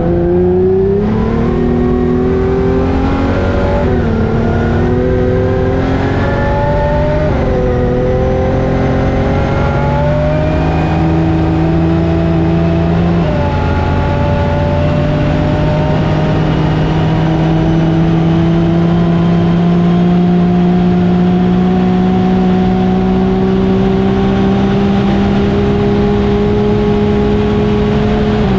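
Homemade Aardema Braun V12 race engine at full throttle, heard from the cockpit. Its pitch climbs and drops back with several quick upshifts, then holds one long, slowly rising pull as the car gathers speed past 200 mph.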